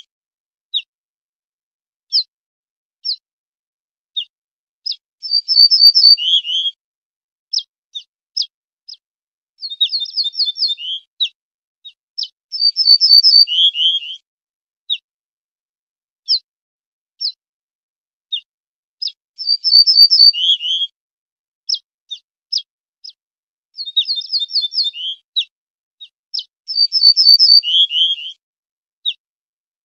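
Ortolan bunting singing: six short song phrases, each a run of repeated high notes dropping to a few lower, falling notes, with single short call notes scattered between the phrases.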